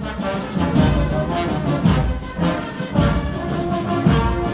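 Brass band playing a dance tune, with a steady beat about once a second.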